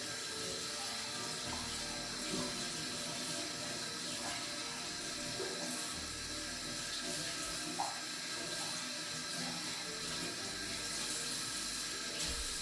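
Water running steadily from a tap into a sink, with a few light clinks, the sharpest about 8 seconds in.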